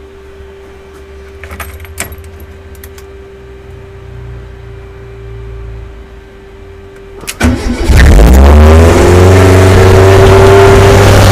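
Fiat Seicento four-cylinder engine started for the first time after a rebuild: a few clicks from the ignition switch with a faint steady tone while the ignition is on, then about seven seconds in the starter cranks briefly and the engine catches. It rises in revs and settles into loud, steady running.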